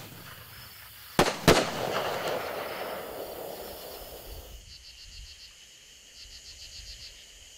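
Last shots of a Boss Hog 500-gram firework cake: two sharp bangs about a second in, a quarter second apart, followed by a few seconds of crackling from the strobe stars that fades out about halfway. Crickets chirp faintly after that.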